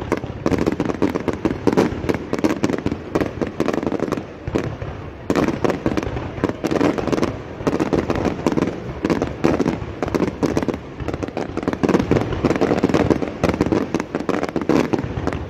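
A fireworks display going off in quick succession: a dense, continuous run of bangs and crackles with no real pause.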